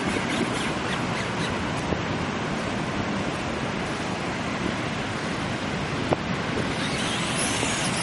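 Steady rushing noise of ocean surf and wind on the microphone, with a single faint click about six seconds in.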